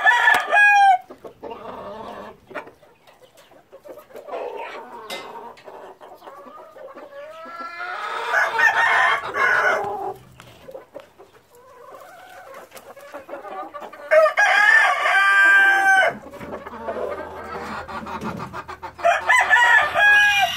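Roosters crowing, with four loud crows: one at the start, then about 8 s, 14 s and 19 s in. Quieter clucking from chickens fills the gaps.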